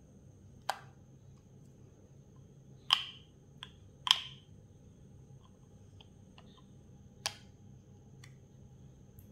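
Sharp clicks and taps from handling the smartwatch and its packaging: five distinct clicks, the loudest about three and four seconds in, with a few fainter ticks between.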